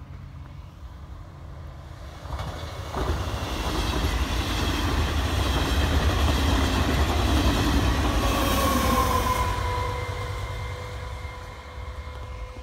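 A train passing by on the rails: a rumble that builds over a couple of seconds, is loudest in the middle, then fades, with a tone that drops slightly in pitch as it goes past.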